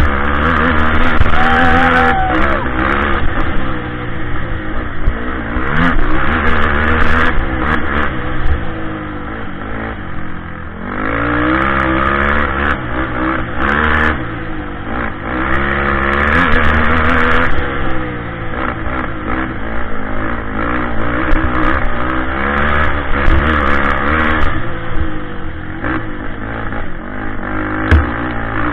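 Kawasaki KFX 450 quad's single-cylinder four-stroke engine revving hard and easing off again and again under racing throttle, with knocks and rattles from the rough dirt track and a sharp knock near the end.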